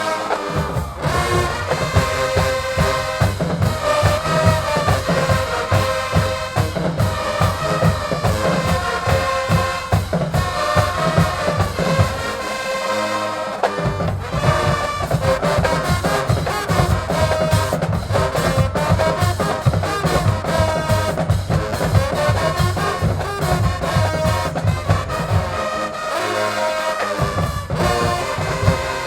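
Marching band playing loudly: massed trombones and trumpets over a fast, steady drum beat. The low drums drop out twice for about a second, once near the middle and once near the end.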